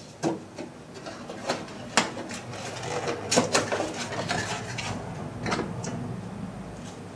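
A cardboard parts box being opened and handled by hand and its contents pulled out, giving a series of sharp clicks and taps with light rustling of packaging, busiest in the middle.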